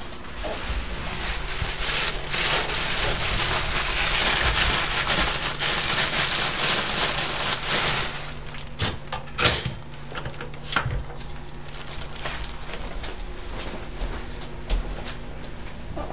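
Crinkly plastic packaging rustling loudly as it is handled for several seconds, followed by a few separate knocks.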